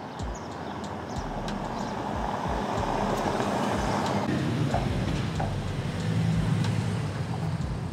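Skoda Kodiaq RS with its 2.0 TSI four-cylinder petrol engine driving past over cobblestones: tyre and road noise swells as it goes by, then gives way about halfway through to a steady low engine note.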